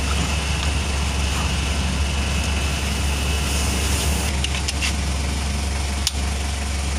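A steady low mechanical drone, with a few light clicks of hand tools on the engine in the second half.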